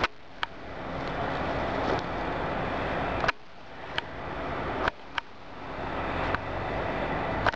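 Steady rushing noise that slowly swells and then drops off abruptly three times, with scattered sharp clicks of the camcorder being handled.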